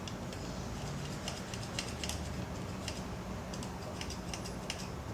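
Irregular light clicks and ticks, a few a second and unevenly spaced, over a steady low hum.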